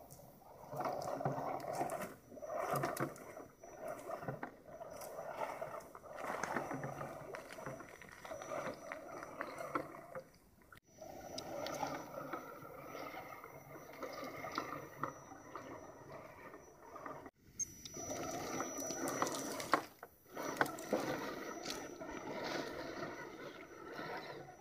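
Electric motor and gear drivetrain of a 1/10-scale Axial SCX10 rock crawler whining as it crawls over dirt, gravel and rocks, swelling and easing with the throttle.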